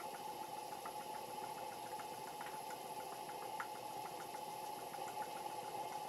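Stuart Sirius twin-cylinder model steam engine running steadily on steam, with faint irregular ticks. Under it runs the steady sound of the boiler's gas burner, with the gas tap open fully.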